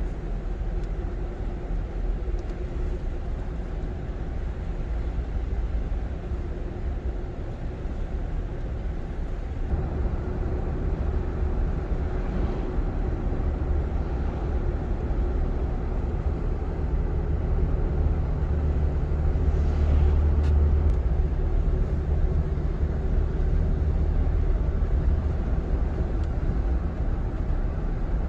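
Car driving, heard from inside the cabin: a steady low rumble of engine and tyres with a faint steady hum, growing louder about two-thirds of the way through.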